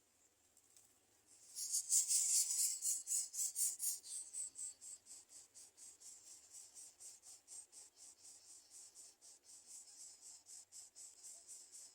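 Greater coucal nestlings begging: a rapid, raspy hissing at about five pulses a second. It breaks out suddenly about a second in, is loudest for the next few seconds, then carries on more softly.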